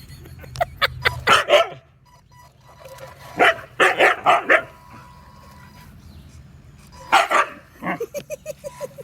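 Siberian husky barking in three short bouts, with a quick run of shorter sounds near the end.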